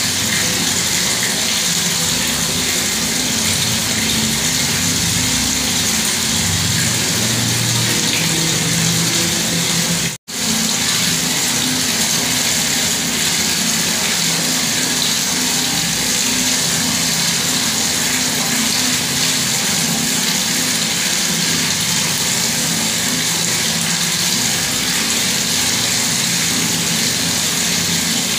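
Bathroom water tap running, a steady rush of water that cuts out for a split second about ten seconds in.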